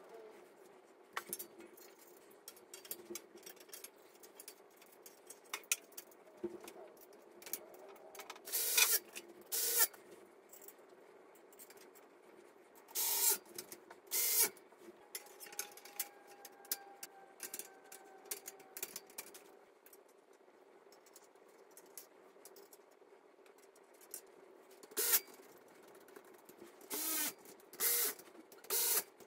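Small cordless electric screwdriver driving screws into a metal frame in several short runs of under a second, between scattered clicks and knocks of metal frame parts and hardware being handled.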